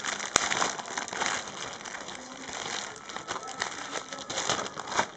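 Thin plastic packaging crinkling and crackling as hands handle and open a trading-card sachet, with one sharp click about half a second in.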